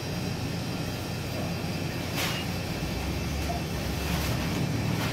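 Steady low rumble of background noise, with a single light knock about two seconds in.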